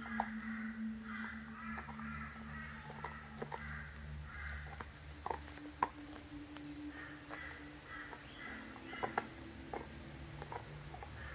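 A Belgian Shepherd (Groenendael) gnawing a raw meaty bone, with several sharp cracks and crunches of bone between its teeth, the loudest about six seconds in and a quick pair around nine seconds. Repeated bird calls sound in the background over a steady low hum.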